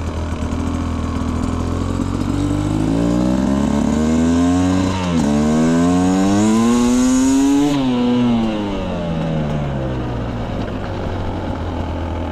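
2025 Beta Xtrainer 250 two-stroke dirt bike engine pulling through a second-gear roll-on. The pitch climbs over a few seconds, dips briefly about five seconds in, climbs again, then falls away as the throttle closes and settles back to a low run. The revs flatten out instead of revving out, which the rider takes as the Xtrainer's soft, beginner-friendly tuning.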